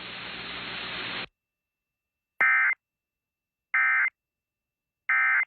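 Radio static hiss that cuts off about a second in, followed by three short bursts of EAS SAME digital data, each about a third of a second long and about a second and a half apart: the end-of-message code that closes an Emergency Alert System alert.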